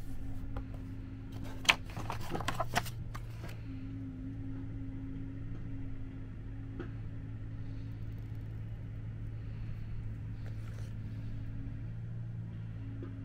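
A steady low mechanical hum, with a cluster of sharp handling clicks and rustling between about two and three and a half seconds in.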